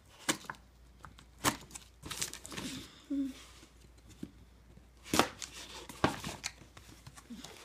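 Packing tape on a cardboard shipping box being cut and torn open: a string of short scratchy scrapes and rips, some louder than others.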